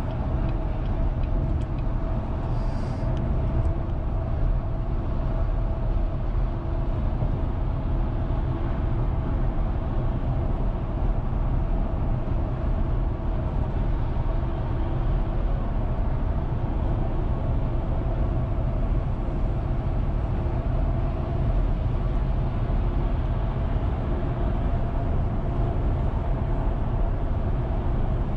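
Steady road noise inside the cabin of a car cruising at speed: a low tyre-and-engine rumble with a constant hum over it.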